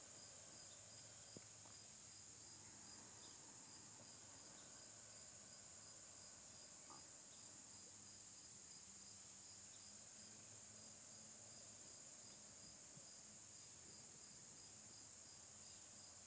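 Near silence filled by a faint, steady, high-pitched chirring of insects in summer grass.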